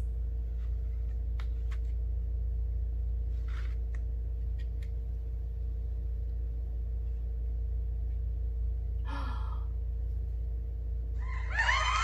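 Steady low hum with a faint steady tone above it, broken by a few faint soft clicks as a cake server cuts into a frosted cake and a short breathy sound about nine seconds in. Near the end, louder music and voices start.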